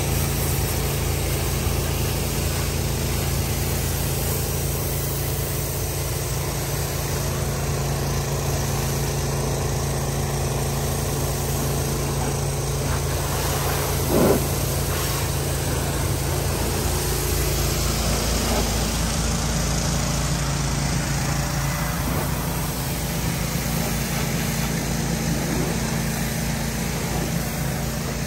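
Hot-water pressure washer running steadily: a low engine drone with the hiss of the spray from the wand. One short, louder sound about halfway through.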